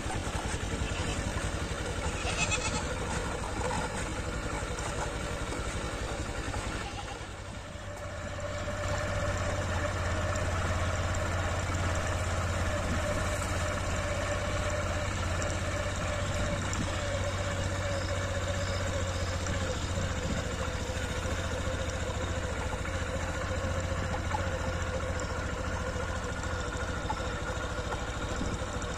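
A motorcycle engine running steadily while riding, with a brief dip in level about seven seconds in before it picks up again.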